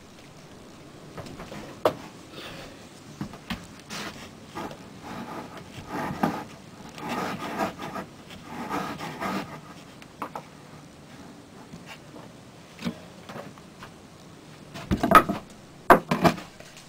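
A porous rock being set down and pushed into play sand, with gritty scraping and rubbing of sand and stone and scattered single knocks. A few sharper, louder knocks come near the end.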